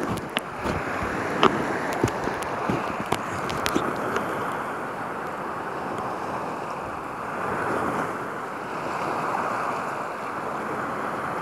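Sea water lapping and sloshing close to the microphone, with wind buffeting it; a few sharp splashes or knocks stand out in the first four seconds, and the wash swells and eases gently after that.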